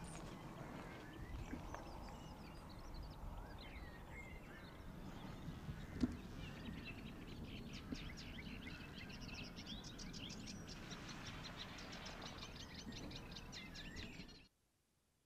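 Faint rural outdoor ambience: a low steady background rumble with small birds chirping, and a fast run of short repeated chirps through the second half. A single sharp click comes about six seconds in, and the sound cuts off abruptly near the end.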